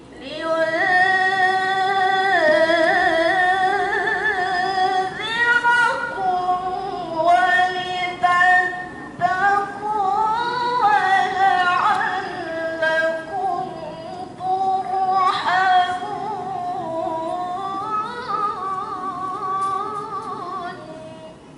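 A young woman's melodic Qur'an recitation (tilawah) sung into a handheld microphone, in long held phrases with ornamented turns that rise and fall in pitch. It breaks off briefly a few times for breath and stops near the end.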